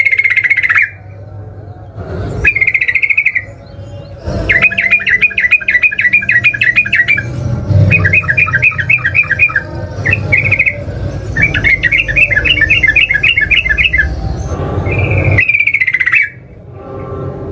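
Yellow-vented bulbul (trucukan) singing: short bubbly phrases and three long runs of rapid repeated notes, about six a second, the fast continuous song that bird keepers call ngeropel. A low hum lies underneath.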